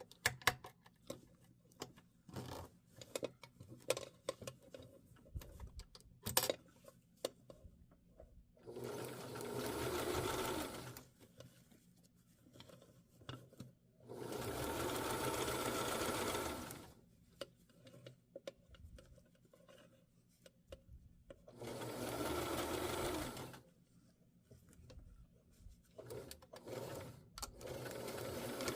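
Sewing machine stitching the zipper tape onto a denim jeans fly in three short runs of about two to three seconds each, with a weaker run near the end. Clicks and fabric handling come between the runs.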